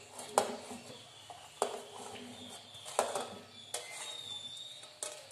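Handfuls of sliced bitter gourd and green chillies being scooped up off a steel plate, with a handful of sharp clinks and taps of metal spaced about a second apart.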